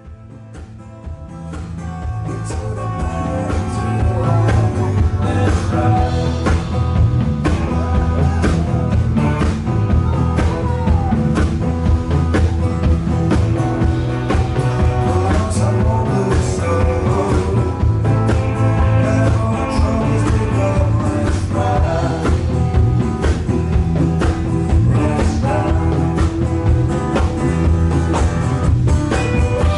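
Live blues-rock band playing: drums, bass and electric guitars, with a singer. The music swells up from quiet over the first few seconds, then carries on at full level.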